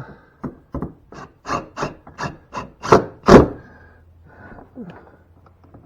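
Hand screwdriver driving an outlet cover-plate screw: a run of short scraping strokes, about three a second and growing louder, then a few more scrapes near the end.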